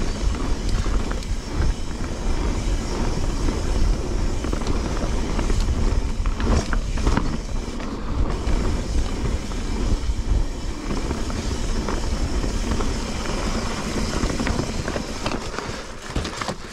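A mountain bike ridden fast down a trail: wind buffeting the helmet or chest camera's microphone with a heavy low rumble, over tyre and frame noise, and a few sharper knocks from the bike over bumps about six to seven seconds in.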